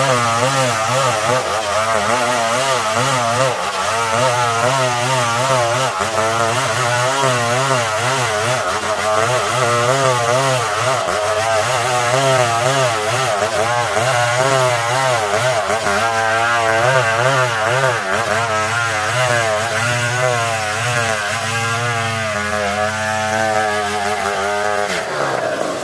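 Old Stihl 070 two-stroke chainsaw running at high revs while cutting planks from a log, its pitch wavering up and down under the load, then dropping away just before the end.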